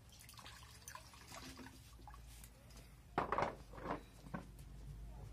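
Water poured from a plastic jug and splashing as a metal plate is rinsed and rubbed by hand, with a louder spell of splashing about three seconds in.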